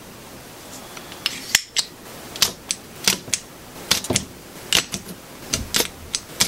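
Spring-loaded solder sucker (desoldering pump) being cocked and fired again and again while desoldering wire joints on a small circuit board: a string of sharp clicks and snaps, about a dozen, starting about one and a half seconds in.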